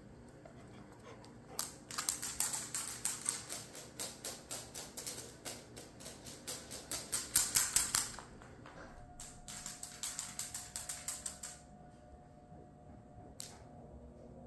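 A wirehaired pointing griffon's claws clicking on a hard wood-look floor as it trots and runs about: a quick run of sharp ticks, several a second, for about six seconds, a pause, a shorter run, then one last tick near the end.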